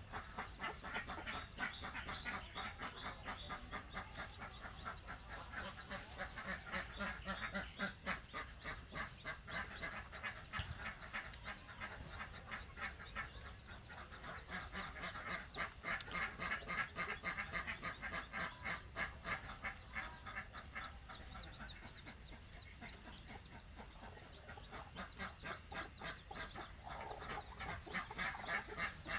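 Flock of domestic ducks quacking in a rapid, continuous chatter, louder around the middle and again near the end.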